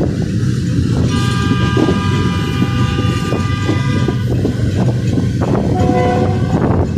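Train running along the track with a steady rumble and clatter of wheels on rails. About a second in, the locomotive's horn sounds for about three seconds, and a shorter, lower-pitched tone follows near the end.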